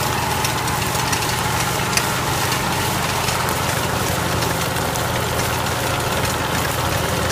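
Agricultural tricycle's small engine running steadily as its tyre rolls through coffee cherries on a drying yard, with a dense crackle of the cherries against the tyre and its tyre-cleaning scraper. One sharper click stands out about two seconds in.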